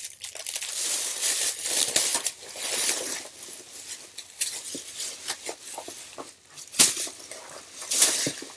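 Thin clear plastic bag crinkling and rustling as it is twisted and pulled off an air fryer, with two sharper crackles near the end.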